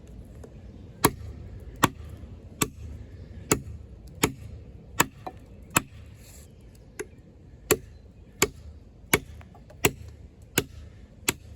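Off-Grid Caiman XXL bowie knife, a 7-inch D2 steel blade, chopping into wood: about fourteen sharp, evenly paced strikes, roughly one every three-quarters of a second, starting about a second in.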